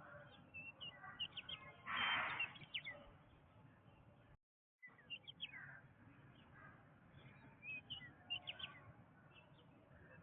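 Wild birds chirping in a jungle chorus: many short, quick high chirps throughout, with one louder, fuller call about two seconds in. The sound cuts out completely for about half a second a little after four seconds.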